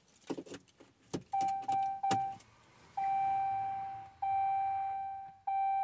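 Keys jingling and clicking as the key goes into the ignition of a 2015 Ram 2500 and is turned to the on-run position, then the truck's dashboard warning chime sounding: three quick chimes, then single longer, fading chimes about every second and a quarter.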